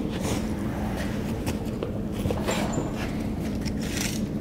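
A steady low hum with a few faint knocks and scuffs as a tractor wheel and tyre is handled on a concrete floor and a tape measure is hooked on its steel rim.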